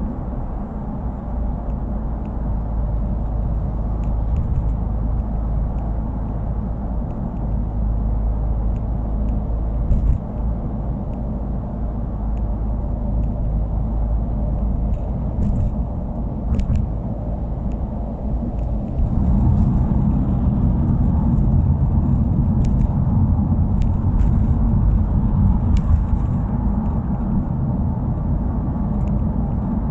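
Subaru WRX's turbocharged flat-four engine and exhaust rumbling while the car is driven, growing louder about two-thirds of the way through. The muffler's earlier abnormal noise has been fixed.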